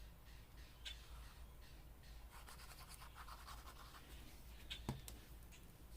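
Faint scratching and rustling of paper and card being glued down and pressed by hand, with a few light taps about a second in and near the end.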